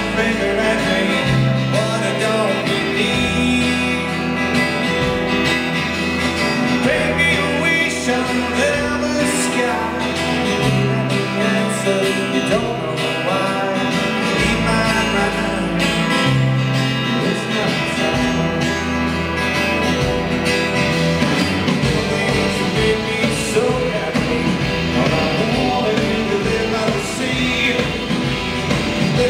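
A rock band playing live through a PA: guitars over long held bass notes, the low end turning to a quicker pulse about two-thirds of the way through.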